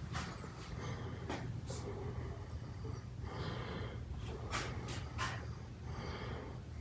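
Breathing and faint handling noise close to a handheld camera's microphone, with a few short sharp sniffs or clicks over a steady low room hum.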